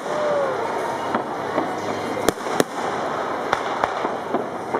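Aerial fireworks shells bursting: a run of about eight sharp bangs, the two loudest close together about halfway through, over a steady background noise.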